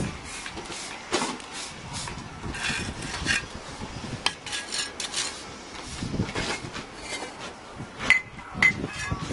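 Bricklaying: bricks knocking and clinking as they are handled from a pile, and a steel trowel scraping and tapping on brick and mortar. Two short ringing clinks come near the end.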